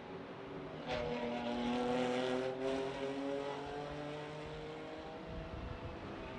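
Mercedes-AMG GT3 race car's V8 engine accelerating along a straight, its pitch climbing slowly over several seconds, with a brief break about two and a half seconds in.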